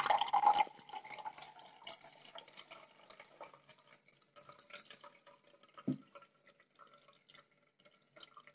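Blended carrot juice poured from a mixer-grinder jar through a plastic mesh strainer into a glass: a loud pour in the first second, then a thin trickle and drips through the mesh. A single low knock about six seconds in.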